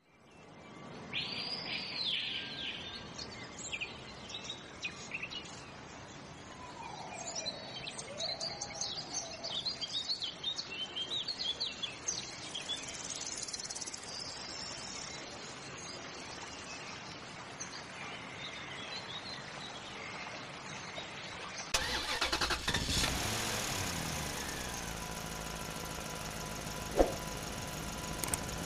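Birds chirping and calling over a faint outdoor background. About 22 seconds in, a vehicle engine starts suddenly, rises in pitch, then runs steadily, with one sharp knock a few seconds later.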